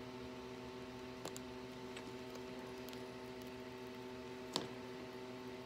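Faint steady hum with a couple of small clicks, one about a second in and a sharper one near the end, from small tablet parts and a razor blade being handled during the teardown.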